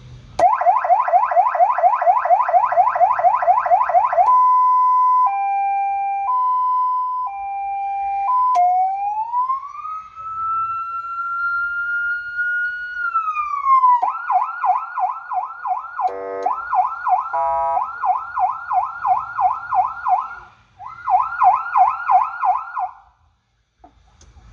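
Electronic ambulance siren, newly installed and being tested through its tones. It starts with a fast sweeping yelp, switches to a two-note hi-lo, then a slow wail that rises, holds and falls. It goes on with a slower yelp broken by two short horn blasts, and stops shortly before the end.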